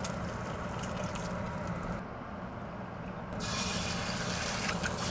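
Bacon fat sizzling and crackling in a hot cast iron skillet, thinner for a moment in the middle and fuller again from about three and a half seconds in as eggs fry in the grease.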